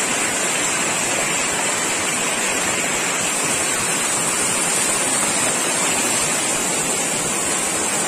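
Waterfall and the stream cascading over boulders below it: a steady rush of falling water.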